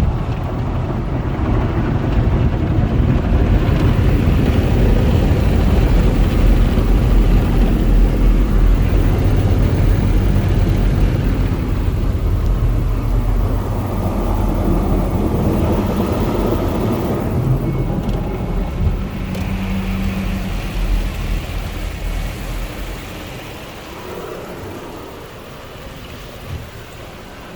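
Car wash tunnel equipment running around a car, heard from inside the cabin: a loud, continuous rushing and rumbling that eases off over the last few seconds.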